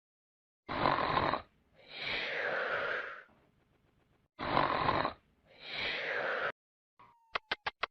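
Comic snoring sound effect: two snores, each a rasping breath in followed by a longer breath out that falls in pitch. Near the end a fast, even train of clicks begins.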